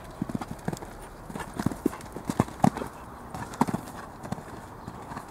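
A horse's hooves striking the sand footing of an arena as it canters under a rider, in an uneven run of short strikes that are loudest about halfway through.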